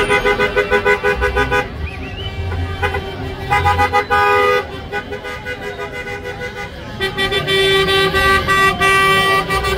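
Car horns on passing vintage cars sounding in rapid repeated toots, in three bursts, over a low engine rumble and crowd noise.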